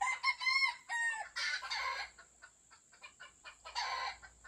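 Game roosters crowing and clucking: several overlapping arched crows in the first second, then two harsher, noisier calls, about a second and a half in and again near the end.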